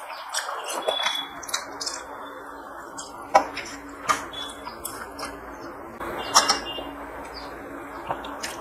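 Fingers mixing and gathering rice on a stainless steel plate, with scattered small clicks and taps against the metal, the loudest about three and a half and six and a half seconds in.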